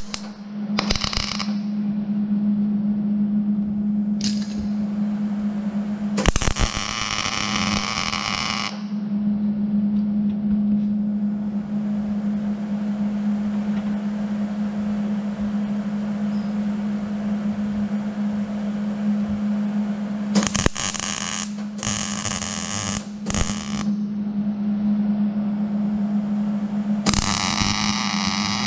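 Arc welder crackling in several short bursts, the longest about two and a half seconds, as the shop vac's wheel retaining cap is welded onto its axle, over a steady hum.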